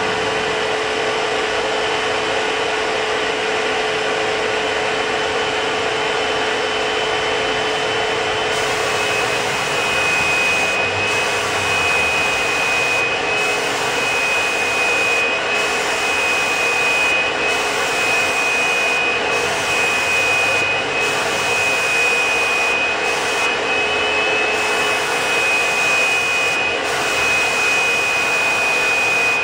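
Fuji Semi Pro 2 HVLP spray system's two-stage turbine running, a steady blower whine with air rushing through the hose and spray gun. About eight seconds in, the whine drops slightly in pitch as the gun starts spraying paint and air flows through it.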